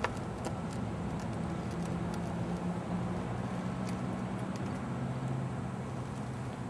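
A steady low motor hum, with a few faint light clicks scattered through it.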